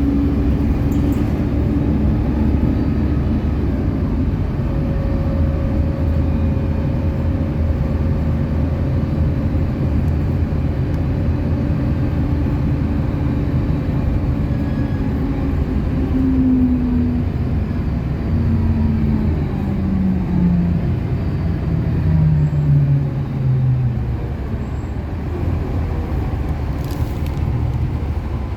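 City bus driving, with a steady engine and road rumble. In the second half a drive whine falls in pitch in steps as the bus slows.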